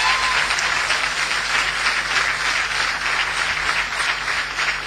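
Audience applauding: dense, even clapping that thins a little near the end.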